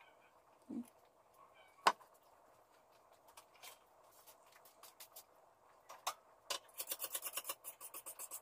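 Faint kitchen handling: a dull knock under a second in, then a sharp clink about two seconds in as a knife is set down on a plate. From about six and a half seconds comes a quick run of small clicks, about six a second.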